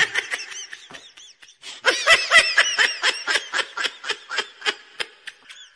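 High-pitched laughter: a quick run of short 'ha' sounds, about six a second, loudest about two seconds in and tapering off toward the end.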